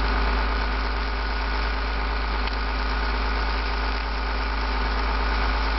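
An engine idling steadily, with a deep low rumble under an even hum.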